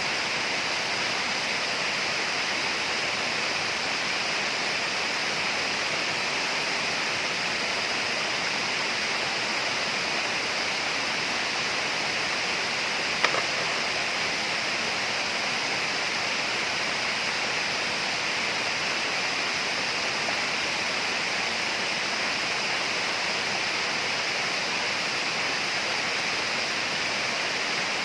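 Tropical rainforest ambience: a steady, unchanging rushing noise with a brighter high hiss over it, and a single sharp click about halfway through.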